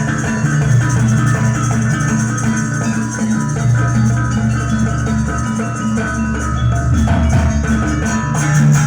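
Jaranan ensemble music: tuned gamelan percussion plays a steady, repeating pattern of metallic notes over a driving drum beat.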